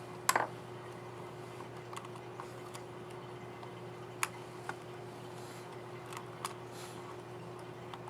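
Small plastic clicks and snaps of a laptop keycap and its scissor mechanism being handled and fitted: a quick cluster of clicks just after the start, then single clicks every second or two.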